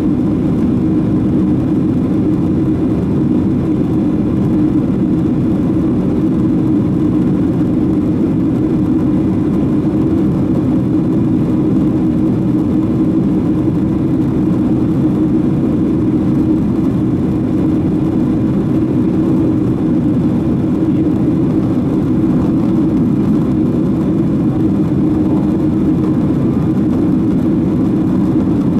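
Steady cabin drone of a Boeing 767-300 in flight: jet engine and airflow noise heard from a window seat over the wing. It is a loud, even rumble with a faint hum running through it.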